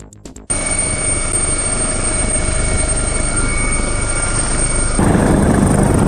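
Helicopter noise heard from inside, on a crew member's helmet camera: a steady rush of rotor and engine noise with a high turbine whine, which gets louder and heavier about five seconds in.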